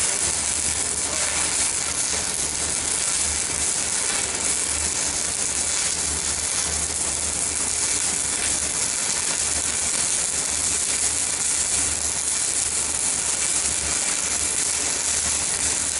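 Stick (arc) welding with a 4 mm electrode on a CNR 120 MOSFET inverter welder: the arc gives a steady, dense crackling sizzle, with a low uneven hum underneath.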